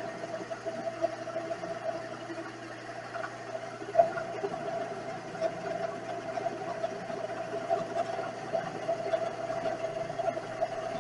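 Vevor 7x14 mini lathe running, a steady whine from its motor and gearing that wavers slightly. There is one sharp knock about four seconds in.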